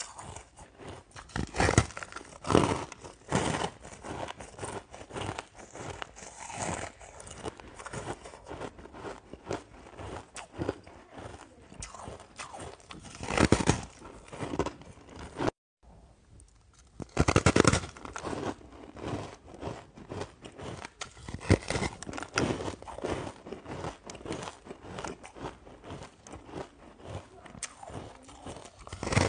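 Hard ice crunching and crackling as a person bites pieces off a frosty block of frozen ice moulded in hexagonal cells and chews them, with several loud bites and a short silent break about halfway.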